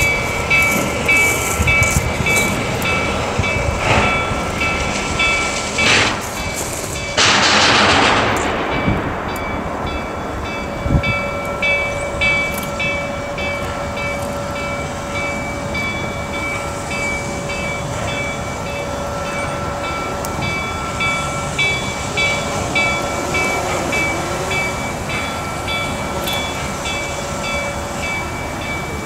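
Reading T-1 4-8-4 steam locomotive No. 2102, heard from a distance, with its bell ringing steadily in even strokes. A loud hiss of released steam starts sharply about seven seconds in and lasts about two seconds.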